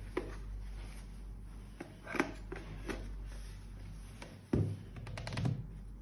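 Hard plastic knocks and clicks from handling a videoscope's display handset and its detachable joystick control module as they are fitted together. A louder thunk comes about four and a half seconds in, followed by a quick run of clicks, over a steady low hum.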